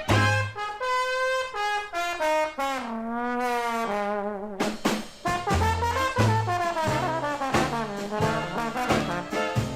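Jazz band music led by brass, with a melody that steps down into a falling, sliding phrase during the first few seconds. A steady bass line runs underneath, and no one sings.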